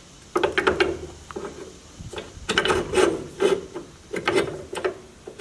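Flat steel bar being slid and repositioned in a bench vise: short metal scrapes and clinks, coming in three bursts.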